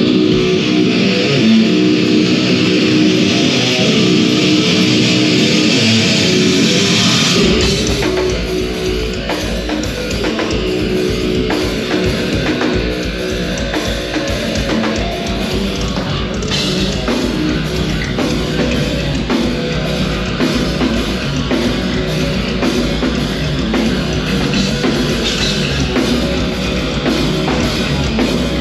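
Heavy metal band playing live and loud: distorted electric guitars alone at first, then the drums and a heavy low end come in about seven seconds in and drive on with a fast beat.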